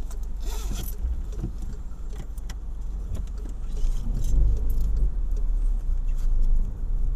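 Low engine and road rumble heard from inside a car cabin as it drives, swelling about four seconds in, with light clicks and jingling of small items.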